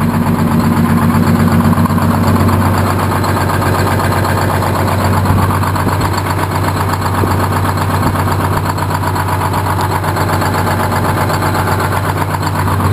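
Two-stroke Detroit Diesel engine of a 1959 GMC truck idling steadily, heard close up.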